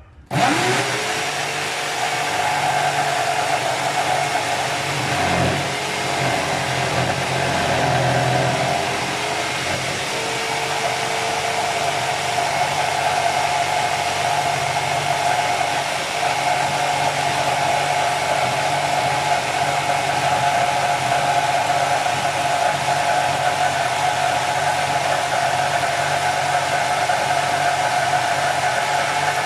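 Electric power tool cutting a speaker hole into a wooden speaker box: the motor starts suddenly, its pitch rising as it spins up, then runs steadily with dips in pitch as it bites into the wood, mostly in the first third.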